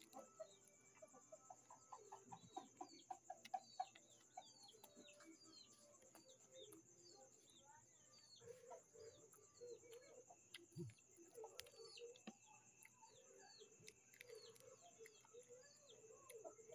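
Faint clucking of chickens mixed with many short, high, falling peeps, over a steady thin high whine, with a few soft clicks.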